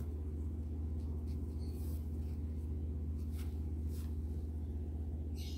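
Steady low hum with faint rustles and a few light clicks from hands handling a small crocheted piece and its yarn, ending in a brief soft swish.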